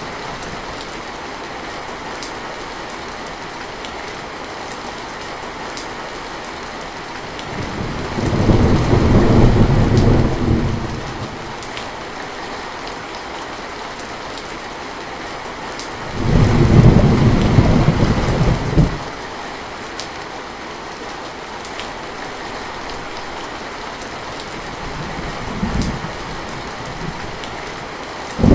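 Heavy rain falling steadily, with two loud low rumbles of thunder of about three seconds each, roughly a third of the way in and past the middle, and a weaker one near the end.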